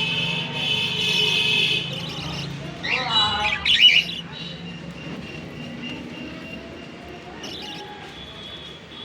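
Budgerigar chirping and warbling, with a run of louder sweeping chirps about three seconds in, then softer warbling.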